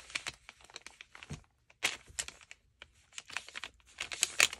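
Paper crinkling and rustling in short, irregular bursts with brief pauses, as a glued piece of paper is handled and pressed onto a paper bag.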